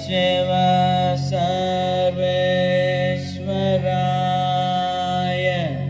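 Chanted Sanskrit mantra to Shiva: a voice holding long, drawn-out notes over a steady drone, breaking to new notes twice.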